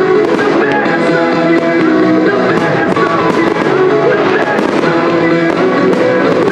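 Loud music playing, with fireworks going off over it: repeated sharp bangs and crackles of aerial shells bursting.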